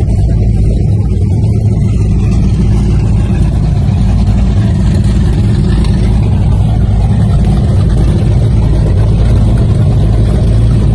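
Twin engines of a Fountain 35 Lightning powerboat idling at the dock: a loud, steady low rumble.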